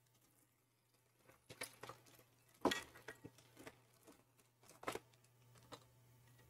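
Faint, scattered light clicks and taps of small parts being handled, half a dozen or so over a few seconds, with a low steady hum underneath.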